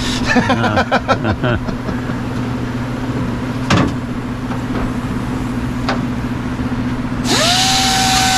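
A power tool spins up about seven seconds in with a quickly rising whine, then runs steadily with a loud hiss. Before that there is a steady low hum and two sharp knocks.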